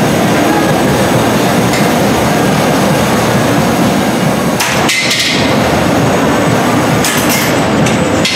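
One-pound combat robots colliding and clattering against each other and the arena, with a cluster of sharp bangs about halfway through and several more near the end, over a loud, dense, steady din.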